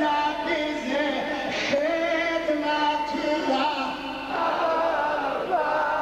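Voices chanting together in long held notes that slide from one pitch to the next.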